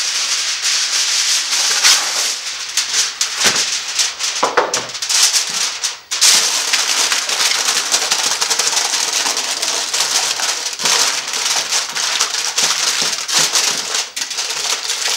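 Aluminium foil crinkling loudly as a sheet is spread over a tray and pressed down around its edges to seal it, with a brief pause about six seconds in.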